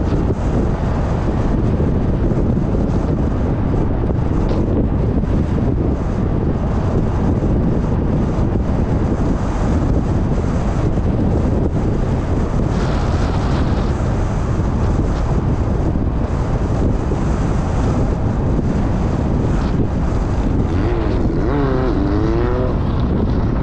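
Steady rumble of a car driving at speed, road and wind noise with wind buffeting the microphone. Near the end a brief warbling, wavering tone rises and falls over it.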